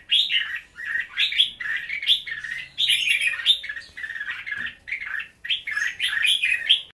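Red-whiskered bulbul singing: a near-continuous run of short, warbled, chirping phrases with brief pauses between them.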